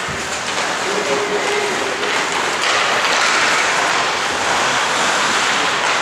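Steady noise of an ice hockey game in play in an arena: skates scraping and carving on the ice amid the general hubbub of the rink.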